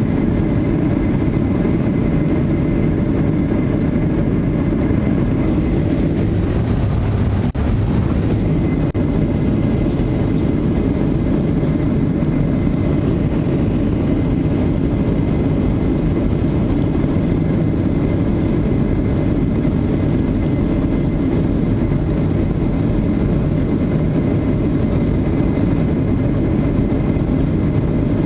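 Cabin noise of a Boeing 737-800 rolling slowly on the ground, its CFM56 turbofan engines running steadily at low power, heard as an even low rumble.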